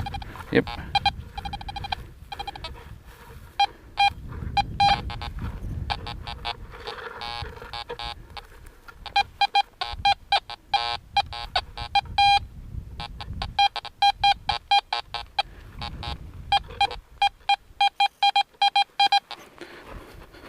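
Fisher F19 metal detector sounding short, quick beeps and chirps in clusters as its search coil is swept over trashy ground.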